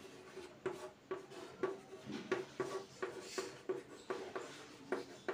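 Chalk writing on a chalkboard: an irregular run of short taps and scrapes, a few each second, as the letters are formed.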